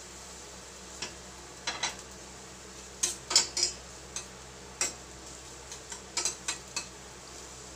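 A metal spoon clinking and scraping against a stainless steel saucepan as chopped garlic is stirred in hot oil. The strokes come irregularly, about a dozen of them, loudest about three and a half seconds in.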